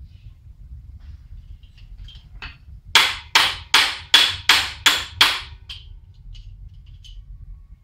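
A steel auto body hammer beating a bent galvanized steel garage door hinge straight: a few light taps, then a run of seven sharp, ringing metal-on-metal blows about three a second.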